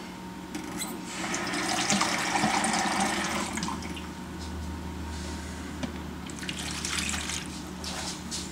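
Kitchen tap running water into a measuring cup for about two and a half seconds, starting about a second in; shorter bursts of noise follow near the end.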